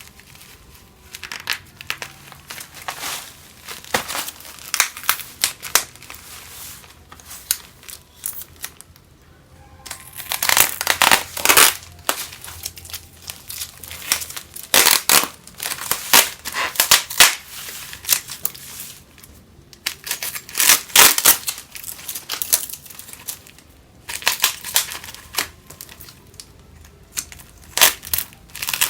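Packaging of Lifebuoy 60 g bar soap being handled and unwrapped: irregular crinkling and crackling of the wrapper, in several louder bouts.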